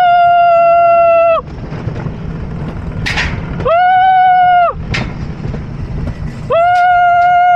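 Alpine coaster sled running along its steel rails with a steady rumble, broken three times by a long, held high-pitched tone that glides up into pitch and falls away at the end: the first at the start lasting about two seconds, a shorter one in the middle, and another near the end.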